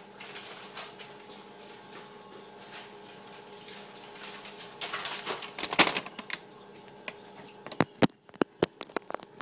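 Rustling handling noise with scattered clicks, a denser rustle about five to six seconds in and a run of sharp clicks near the end.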